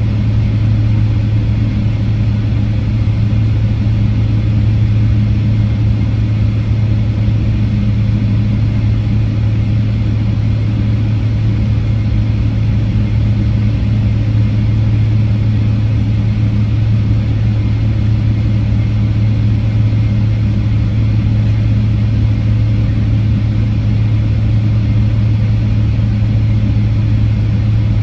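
Steady low drone inside the cabin of a Boeing 777-300ER with its two GE90-115B engines running, a deep hum over a constant rush of noise, unchanging in pitch and level.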